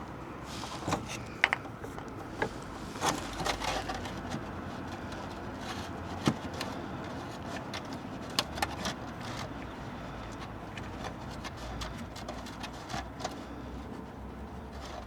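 Irregular light clicks and taps over a faint steady background while diesel drains from the opened fuel filter drain plug into a container; the clicks come several at a time in the first few seconds, then more sparsely.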